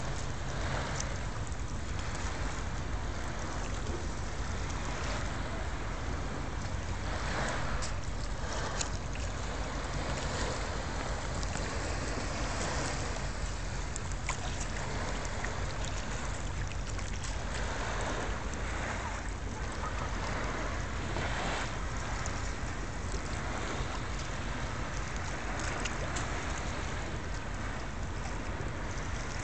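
Wind rushing and buffeting the phone's microphone, over small waves lapping at the edge of a calm, shallow bay. The rush swells briefly a few times.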